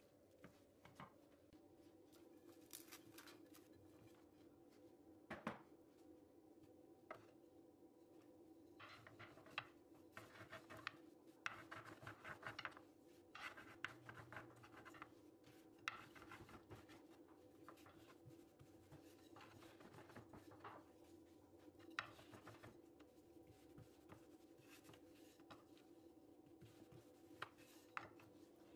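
Faint kitchen handling sounds: a wooden spoon stirring spinach filling in a wooden bowl, then a wooden rolling pin rolling dough on a floured wooden board, with scattered light knocks and rubbing over a faint steady hum.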